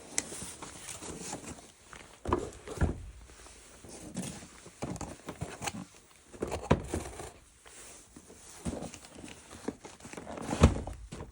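Hands handling a plastic toy weapon set and its packaging: irregular clicks, knocks and crinkles, with a few sharper knocks about two and a half seconds in, near the middle and near the end.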